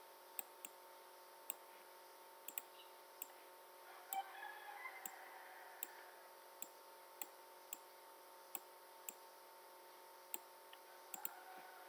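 Computer mouse buttons clicking at irregular intervals, roughly one or two faint clicks a second, over a faint steady hum.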